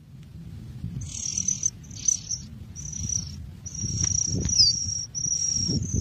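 Nestling songbirds begging: a run of high, thin, drawn-out peeps, each about half a second to a second long with short breaks, starting about a second in, over a low rumble.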